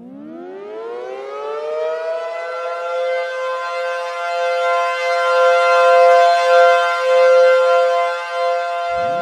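Civil defense siren winding up from silence, its pitch rising over about two seconds into a steady two-note chord whose loudness swells and dips. Just before the end, a second wind-up begins from a low pitch.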